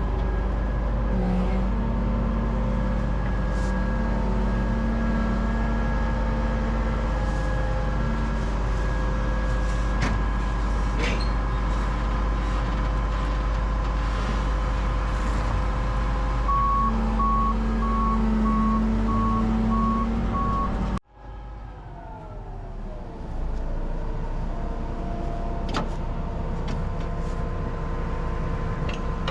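Harvest machinery engine running steadily under load, with a regular electronic warning beep sounding for a few seconds about two-thirds of the way through. It then breaks off abruptly, and a machine sound comes back whose pitch slides down before settling.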